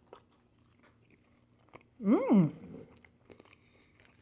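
A person chewing food with faint wet mouth clicks, and one short hummed vocal sound, rising then falling in pitch, about two seconds in.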